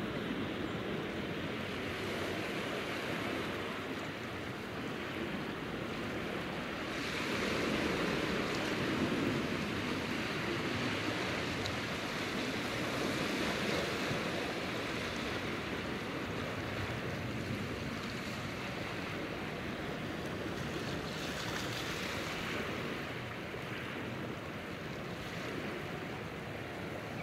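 Sea waves washing over a rocky shore: a steady surf wash that swells about seven seconds in and eases off again.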